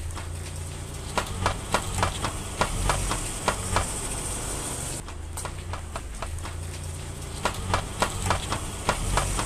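A worn front CV joint on a Volkswagen Jetta Mk2 clicking repeatedly, about three clicks a second, over the low running of the engine as the car rolls with the steering at full lock. It comes in two runs of clicking. The clicking is the sign of a damaged constant-velocity joint.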